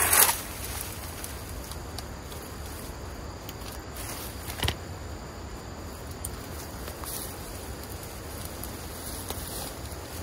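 Cordless hedge trimmer running briefly and stopping a moment in, its battery running low. Then a steady background of insects, with a few small clicks and rustles as the vines are handled.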